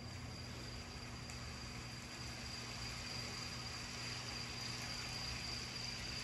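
Quiet room tone in a hushed pause, with a steady high-pitched whine over a faint low hum.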